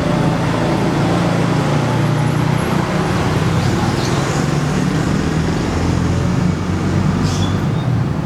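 HF Audio ASW 118A 18-inch subwoofer playing heavy bass on test, a loud deep rumble whose low notes shift every few seconds.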